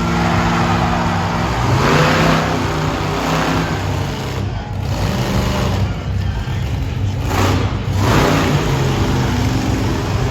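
Monster truck engine at full throttle on a timed run, revving hard with its pitch rising and falling. The revs drop briefly about three times as the throttle is lifted and reopened.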